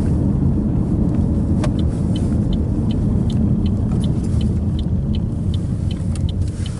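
Car driving: a steady low rumble of engine and road noise. From about two seconds in, a regular series of short high ticks, about three a second.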